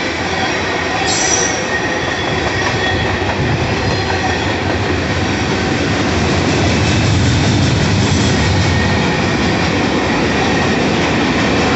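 Freight train passing close by: tank cars and then boxcars and a hopper rolling over the rails with a steady clatter, and a thin squeal of wheels against the rails running underneath.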